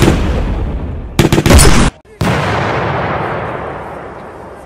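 Fireworks shells bursting overhead with loud bangs that sound like gunshots: a big bang fading at the start, a quick rattle of sharp cracks about a second in, then another big bang about two seconds in that echoes and slowly dies away.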